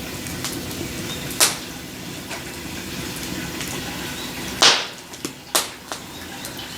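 Three sharp knocks of hard objects being handled: one about a second and a half in, a louder, longer clatter about two-thirds of the way through, and another a second later. Under them runs a steady low background noise with faint scattered ticks.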